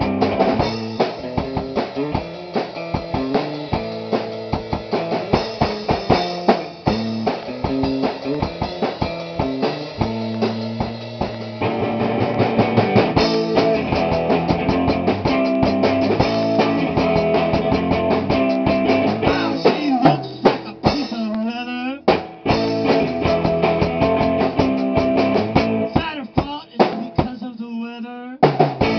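Rock band playing live in rehearsal: a drum kit with snare and bass drum hits under electric guitar. Twice a wavering, bending pitched line stands out above the band.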